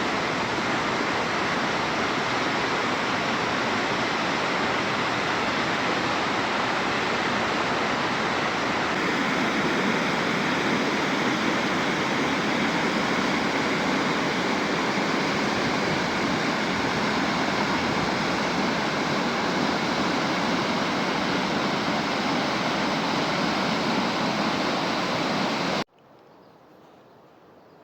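Waterfall rushing in a steady, even roar of falling water that cuts off abruptly near the end, leaving only a faint hiss.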